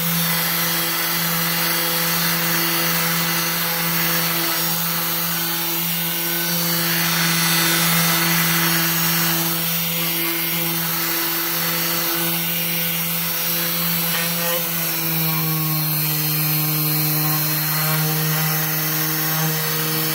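Electric orbital hand sander running steadily on a wooden board: a constant motor hum with the hiss of sandpaper rubbing the wood as painted lettering is sanded off. The hum grows a little stronger about three-quarters of the way through.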